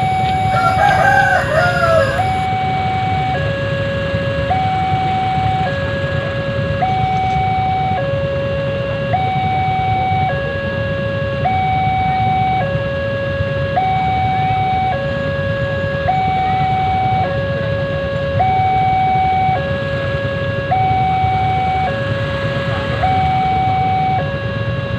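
Electronic warning alarm of an Indonesian railway level crossing, alternating between two tones: a short higher tone, then a longer lower one, repeating about every two seconds. It signals that a train is approaching and the barriers are down. Under it runs the low rumble of idling motorcycles waiting at the crossing.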